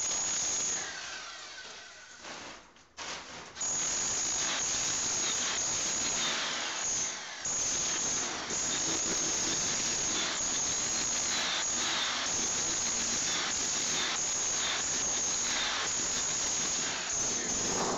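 Electric chipping hammer with a flat chisel, rattling steadily as it breaks glued-down wood flooring off the concrete subfloor. It eases off and stops for about a second two to three seconds in, and pauses again briefly a few seconds later.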